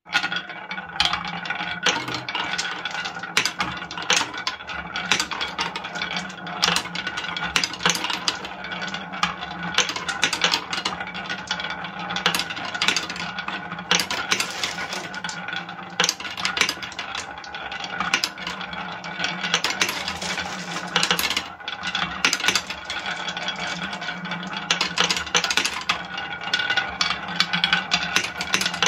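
Many small balls rolling and clattering continuously along carved wooden tracks, knocking against the wooden walls and dropping into a wooden tray, with dense irregular clicks.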